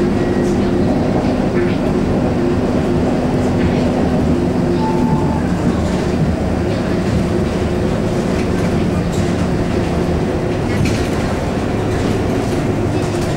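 Inside a Scania K230UB city bus on the move: its DC9 diesel engine and ZF Ecomat automatic gearbox drone steadily under tyre and road noise. The low drone eases off about five seconds in.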